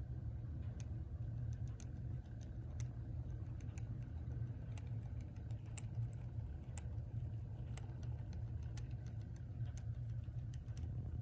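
Hammond Bichronous clock movement (c. 1931) running loud: a steady low hum with irregular light ticking and rattling over it. The noise is excessive, and the owner thinks the spinning governor is making a lot of it.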